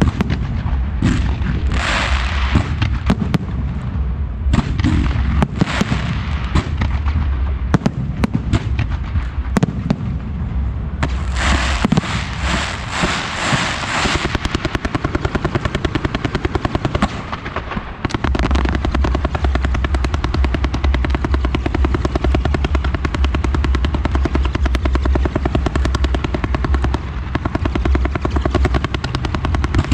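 Fireworks display: dense volleys of launches and bursting shells with crackling. A bright burst of crackle comes about 11 to 14 seconds in, and from just past halfway the firing turns into a fast, even run of pops like machine-gun fire.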